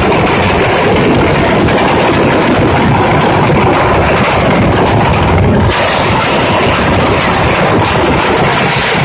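Mascletà gunpowder firecrackers going off in a dense, unbroken barrage: countless bangs merge into one continuous, very loud rumble, turning harsher and more crackling a little past halfway.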